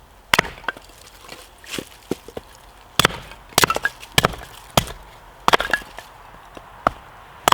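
Kindling being chopped: a blade strikes the wood about ten times at an uneven pace, each strike a sharp crack.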